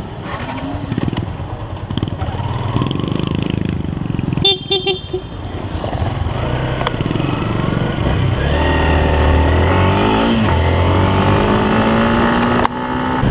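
Yamaha Sniper 150 single-cylinder motorcycle pulling away: a few short horn beeps about four and a half seconds in, then the engine revs up through the gears, its pitch rising, dropping at a shift and climbing again.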